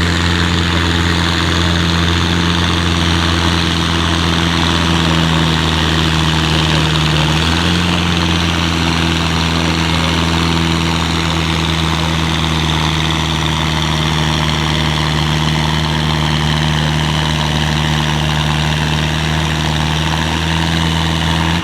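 Ford 7000 farm tractor's diesel engine running hard under full load, pulling the weight-transfer sled at steady high revs. The engine note drops slightly about seven and a half seconds in as the load builds.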